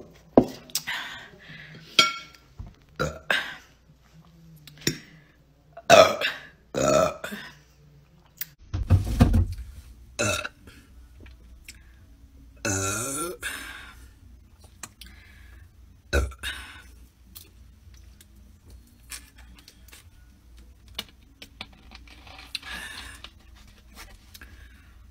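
A young woman burping again and again: a string of short burps, then a long burp about 13 seconds in that drops in pitch. The burps thin out in the last several seconds.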